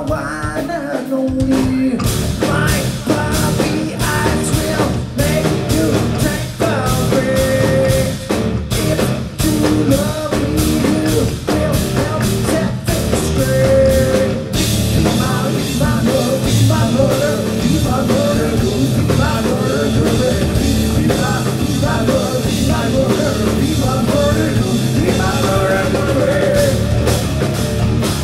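Live heavy rock band playing loud, with distorted electric guitars, bass and a drum kit, and a male voice singing. A held chord gives way to the full band crashing in about two seconds in, and the cymbals get louder and wash over the rest from about halfway.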